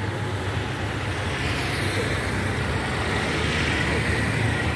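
Steady road traffic noise from passing cars, auto-rickshaws and motorbikes, an even low rumble.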